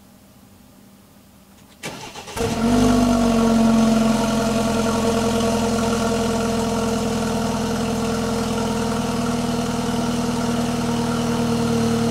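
BMW 428i's N20 turbocharged four-cylinder on its stock exhaust being cold-started, heard from about a foot behind the left tailpipe: a brief starter crank about two seconds in, then the engine catches, flares louder for a second or two and settles into a steady idle.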